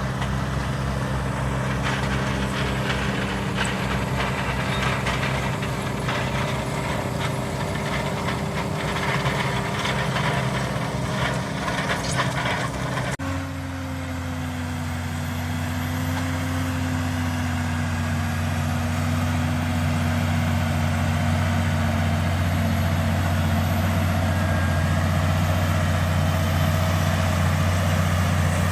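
Valtra Q Series tractor engine running steadily while it pulls a Lemken five-furrow plough. Irregular clicking and rattling sounds over it through the first half, then the sound changes abruptly to a steadier engine note.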